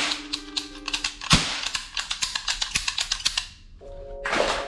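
Toy guns being handled and fired over background music: one loud crack a little over a second in, then a fast run of sharp clicks for about two seconds, and a short hissing burst near the end.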